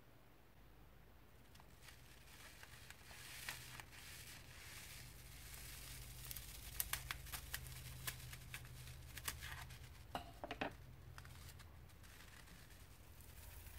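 Faint crinkling of a clear plastic piping bag full of foam beads as it is handled, then scissors snipping the bag's plastic tip with a run of short sharp clicks between about six and eleven seconds in.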